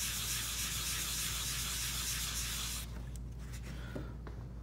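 Hand-held abrasive pad, the first disc of a manual stone-polishing kit, scrubbed over a wet marble tile to grind out an etch mark. The steady scrubbing stops abruptly about three seconds in, followed by a light tap near the end.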